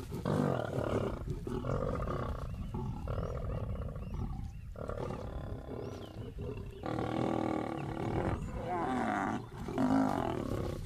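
Lions snarling and growling over a carcass: a run of harsh calls, each about half a second to a second long, with short breaks between. This is feeding aggression as a lioness is driven off the kill.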